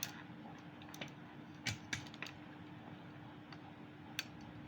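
A few light clicks and taps as ring light parts are handled and fitted together, spaced irregularly with a small cluster about two seconds in, over a faint steady hum.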